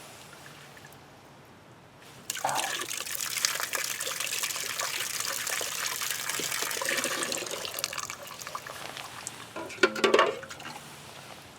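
Water running and trickling into a frozen sink drain, used to thaw the ice in the pipe. It starts about two seconds in and runs steadily, with a brief clatter of knocks near the end.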